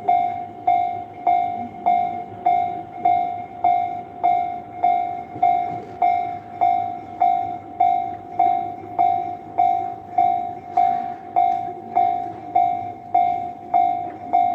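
Japanese railway level-crossing warning bell ringing in a steady 'kan-kan' rhythm, about 1.7 strokes a second, each stroke a sharp strike that fades, over a faint low rumble.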